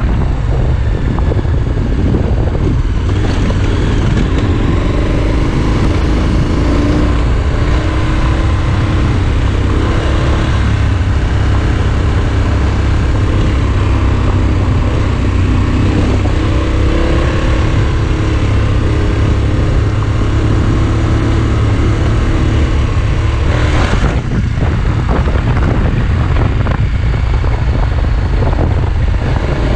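Adventure motorcycle's engine running steadily as the bike rides a gravel dirt road, its pitch drifting slightly with the throttle, over a heavy low rush of wind and road noise. A brief louder rush comes near the end.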